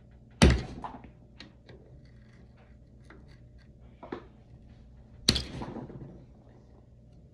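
Metal tool work on an Air Lift Performance air-suspension manifold: a flathead screwdriver prying at a cartridge's split retaining ring in its port. Two sharp metallic knocks about five seconds apart, each ringing out briefly, with small clicks and scrapes between them.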